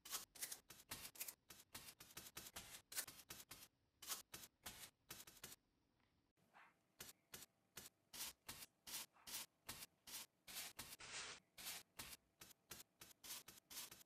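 Paintbrush bristles dabbing and scraping paint onto a foam panel in quick short strokes, about three or four a second. There is a brief pause about six seconds in, then more strokes, one of them longer, as a black coating is brushed onto foam.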